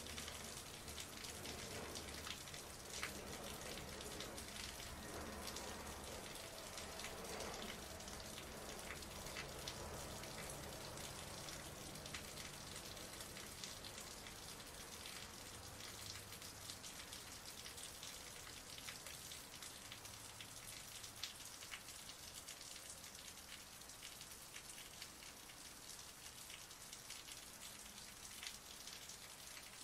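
Heavy rain falling and splashing on a surface: a dense, steady patter with sharp hits from single drops, growing slightly softer in the second half.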